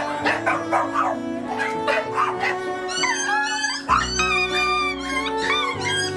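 Several dogs barking and yipping, with high whining calls that rise and fall about halfway through, over background music with held notes.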